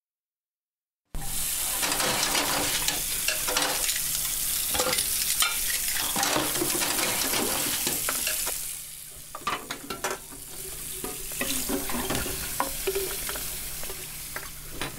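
Kitchen tap running hard into a sink full of dishes, with pots and pans knocking and clattering, starting about a second in. About eight seconds in the rush of water drops away, and scattered clinks and knocks of dishes being handled carry on more quietly.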